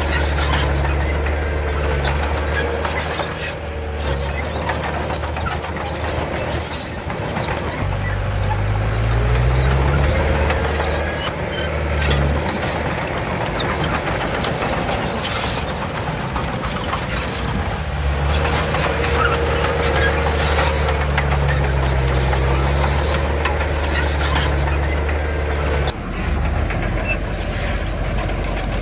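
Komatsu D31 bulldozer's diesel engine working while pushing soil, its note rising around a third of the way in and shifting again near the end, with scattered high metallic squeaks and clicks over it.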